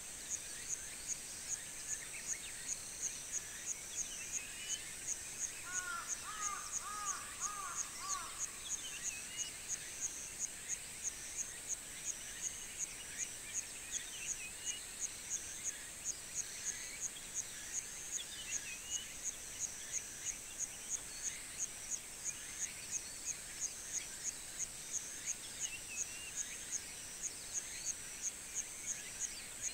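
Summer countryside ambience: an insect chirps steadily in a high-pitched, pulsing drone, about two to three pulses a second, with scattered birdsong. About six to eight seconds in, a bird gives a short run of lower, repeated notes.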